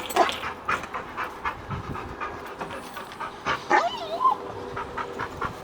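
Dog panting rapidly and excitedly, with a short whine a little past the middle.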